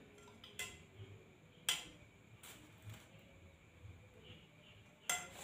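A spoon clicking against a plate while rice is scooped onto it: a few separate sharp clicks, the loudest about a second and a half in and another near the end.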